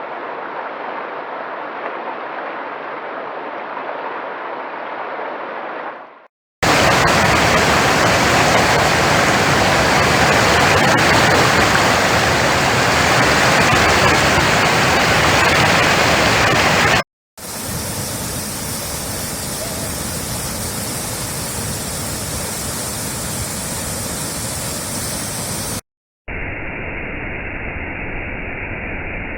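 Steady rushing roar of waterfalls, in four separate takes joined by abrupt cuts with a brief silence about six, seventeen and twenty-six seconds in. The middle take is the loudest and brightest; the last sounds duller.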